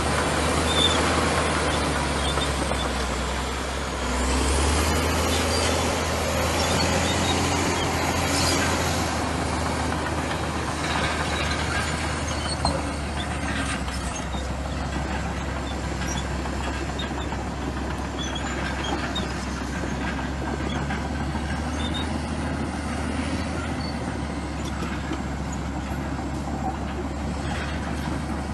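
Bulldozer's diesel engine running with a steady low drone, swelling briefly about four seconds in.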